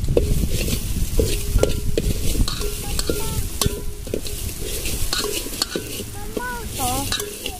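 A steel ladle stirring and scraping masala and spices frying in oil in a metal pot over a wood fire, with repeated clinks of the ladle against the pot and a sizzle underneath.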